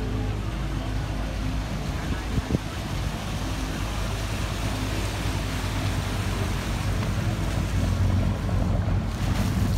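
Small motorboat's engine running steadily under way, with water washing along the hull. Two short knocks come about two and a half seconds in, and a burst of hiss near the end.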